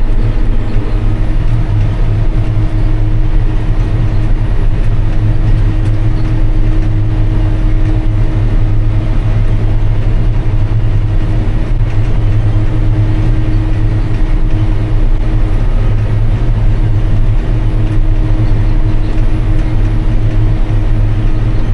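Heavy farm machinery chopping rye for silage: a large diesel engine running steadily under load, a continuous low drone with a steady hum above it.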